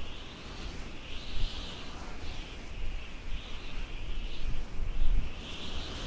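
Wind gusting across the microphone as an uneven low rumble, with steady high-pitched chirping that swells and fades in the background.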